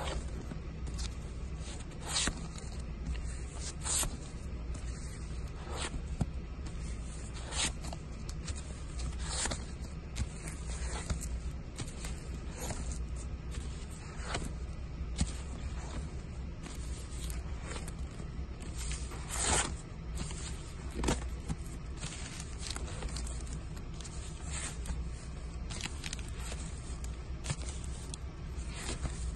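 Vinyl LP albums in clear plastic outer sleeves being flipped through one at a time, each flip a short swish of sleeve sliding against sleeve, about every one and a half to two seconds, over a steady low hum.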